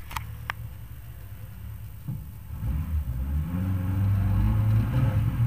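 NSU TT's air-cooled four-cylinder engine idling, then revved up from about two seconds in, the pitch climbing and held high as it builds revs for the launch off the start line. Two sharp clicks near the start.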